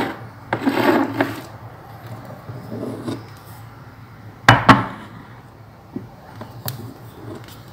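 Filled glass jars being set down and shifted on a hard kitchen countertop: a clunk at the start, a quick pair of knocks about four and a half seconds in and a lighter one shortly after, with soft rubbing of glass on the surface between.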